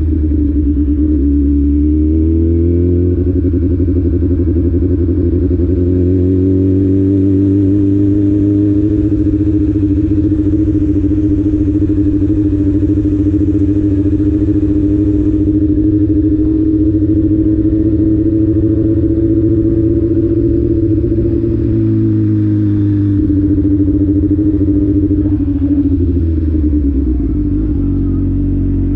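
A motor vehicle engine held at steady high revs for a long stretch. It dips and climbs again just after the start, and falls off near the end.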